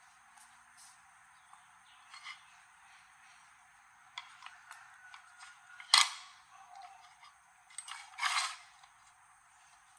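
Small hard objects being handled during repair work: scattered light clicks, a sharp clack about six seconds in, and a short scraping rattle around eight seconds in.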